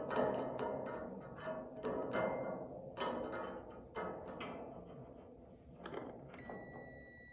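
Knocks and clicks of a dryer part and multimeter probes being handled, about once a second. Near the end a multimeter's continuity beeper starts a steady high beep, showing the circuit through the part is closed.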